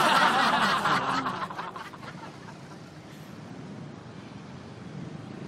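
Laughter for about two seconds, then fading to quieter street traffic noise.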